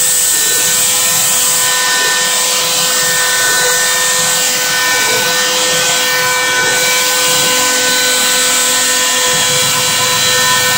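Bosch 1 HP trim router, used as a CNC spindle, running steadily at high speed with an even high-pitched whine.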